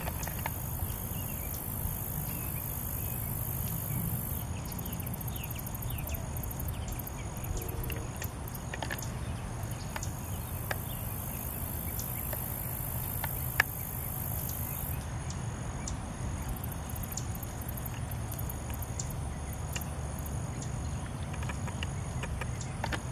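Outdoor insect chorus: a steady high buzz that stops about four seconds in, comes back around ten seconds and stops again near fifteen, with fast high chirping in between, over a low steady rumble. One sharp click a little past halfway.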